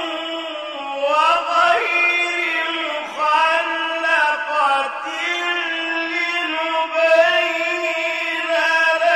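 A man chanting Quran recitation melodically, with long, drawn-out held notes that bend and ornament in pitch.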